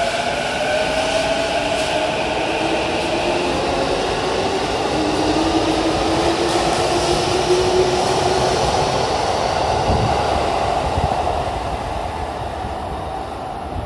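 Electric commuter train pulling out of an underground station: its traction motors whine in several tones that rise steadily as it gathers speed, over the rumble of wheels on rail. The sound fades near the end as the train leaves.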